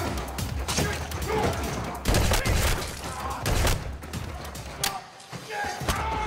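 Film gunfight sound: a rapid run of gunshots and hits, loudest in the middle, with a brief lull about five seconds in.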